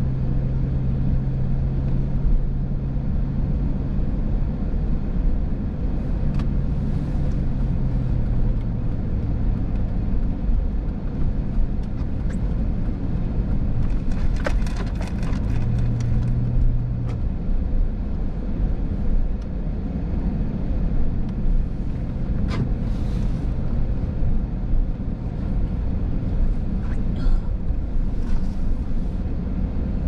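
Car engine and tyre noise on wet pavement, heard from inside the car while driving. The engine note shifts pitch a few times as the car slows and turns, and a short run of sharp ticks comes about halfway through.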